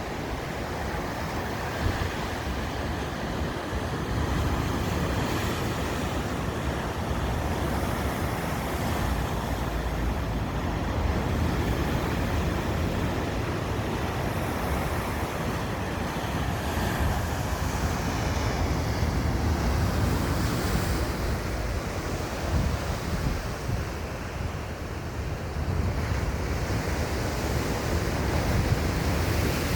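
Sea waves washing in and breaking, a steady surging rush, with wind buffeting the microphone and adding a low rumble.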